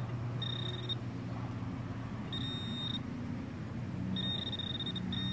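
Handheld metal-detecting pinpointer (Garrett Pro-Pointer) giving four separate high-pitched steady beeps, each about half a second to nearly a second long, as it is probed into the dig hole. The beeps signal metal still in the hole.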